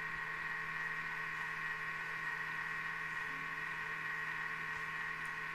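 Thermomix food processor's motor running at speed 2, stirring the warm milk, butter, yeast and sugar at 37 °C: a steady hum with a high whine.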